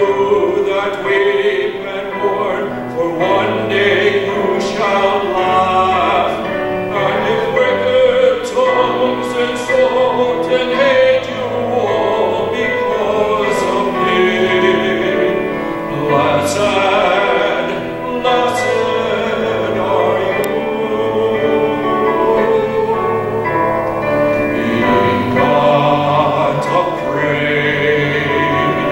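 Church hymn music: sung melody over a sustained instrumental accompaniment, continuing steadily.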